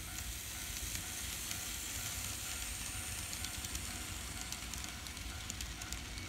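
N scale model freight train running along the track: a steady hiss and rumble, with light clicking of the wheels over the rails from a little past the middle.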